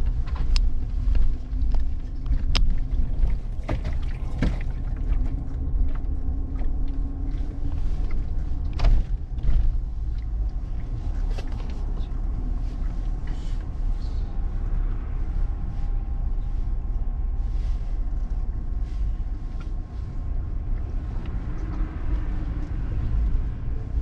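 Steady low rumble with scattered sharp clicks and knocks, and a faint hum in places.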